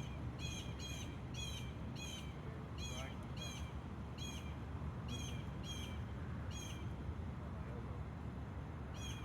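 A bird repeating one short, sharp high call about twice a second, with a pause of a couple of seconds near the end, over a steady low background rumble.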